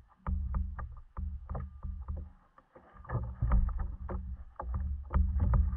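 Water slapping against a plastic fishing kayak's hull, with a run of short sharp clicks, about three or four a second, and a brief lull near the middle.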